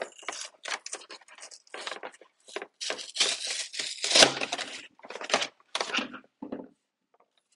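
Packaging of a Pokémon trading-card box being torn open, with a quick run of irregular tearing and crinkling noises. The tearing is loudest a little past halfway and stops about a second before the end.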